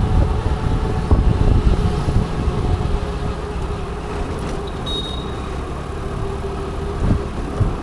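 Motor scooter running through road traffic: a steady low rumble with an even engine hum. A brief high tone sounds about five seconds in.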